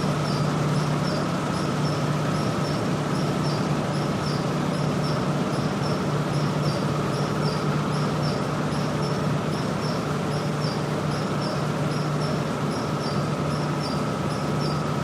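Steel mill ambience: a steady, dense industrial drone with a constant low hum and a held higher tone. Over it, a regular high-pitched chirping repeats a few times a second.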